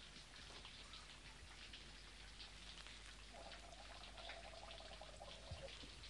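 Very faint patter of rain, a steady scatter of tiny ticks, close to silence. A faint steady tone rises out of it for a couple of seconds in the middle.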